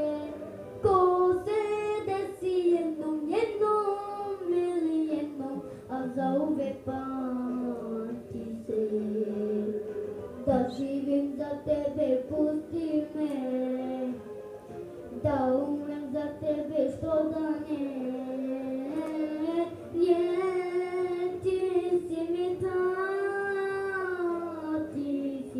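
A boy singing a slow melodic song into a handheld microphone, holding long notes with a wavering vibrato.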